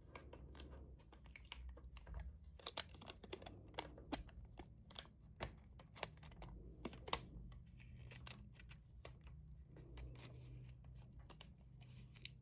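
Thin protective plastic film being peeled off a new keyboard's glossy casing, with irregular crackling and sharp little clicks from the film and handling of the keyboard.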